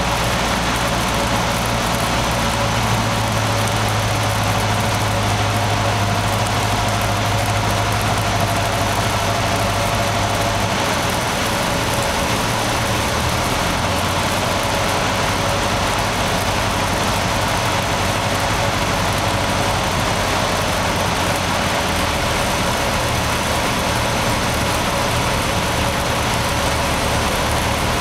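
Cessna 150's four-cylinder Continental O-200 engine and propeller running at reduced power on the landing approach, heard inside the cabin over steady airflow noise. About eleven seconds in the low engine note drops as power comes back.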